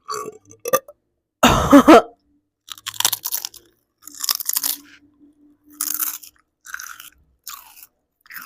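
A person chewing crunchy food close to the microphone: a run of short, irregular crunches with gaps between them, the loudest about a second and a half in.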